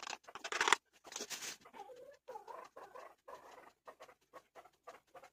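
Light dabbing and tapping of a makeup sponge pressing loose setting powder under the eye (baking the under-eye). There are two brief rustles near the start, then a run of faint soft taps.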